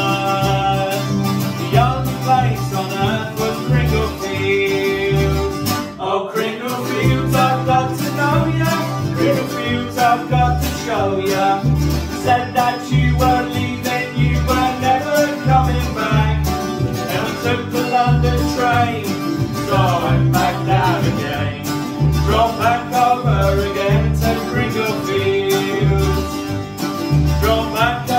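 Acoustic folk band playing: upright double bass plucked in a steady beat, a strummed acoustic guitar and a picked mandolin-type instrument.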